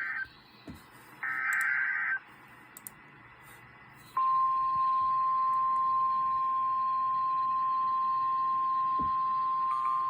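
Emergency alert: the end of one burst and one full burst of SAME digital header data, each a harsh warbling screech about a second long. About four seconds in, the NOAA Weather Radio's steady single-note warning alarm tone starts and holds, signalling an incoming warning.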